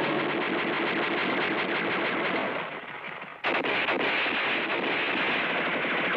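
Rapid, continuous gunfire from several weapons in a firefight, shot after shot in quick succession. It dips briefly about three seconds in, then resumes abruptly at full loudness.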